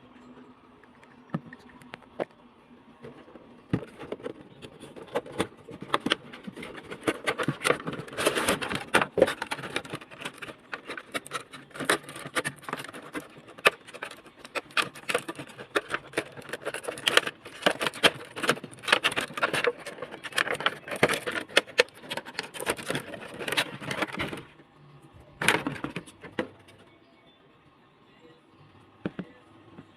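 Plastic packaging crinkling and crackling as an action figure's box is handled and opened. The crinkling is dense and irregular and stops abruptly, then comes back once briefly.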